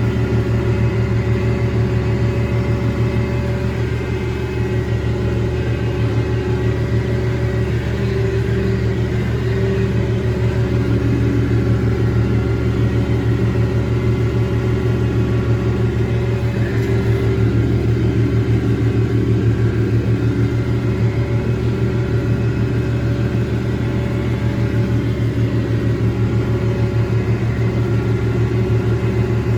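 Massey Ferguson 1105 tractor's six-cylinder Perkins diesel engine running steadily at an even speed, pulling a John Deere 335 round baler.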